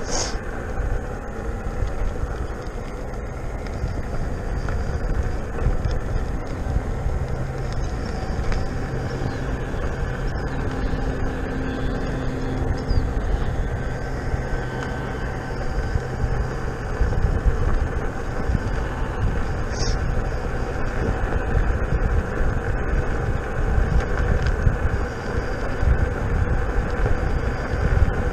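Wind buffeting the microphone and tyre rumble of a King Song S18 electric unicycle riding on an asphalt path, a steady rushing noise with a faint hum underneath.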